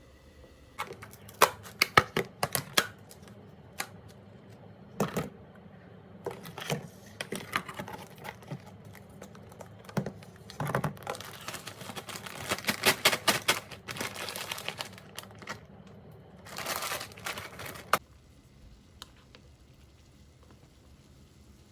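Close handling noises: a run of sharp clicks and taps, then two stretches of crinkling like plastic packaging being handled, which stop suddenly about 18 seconds in.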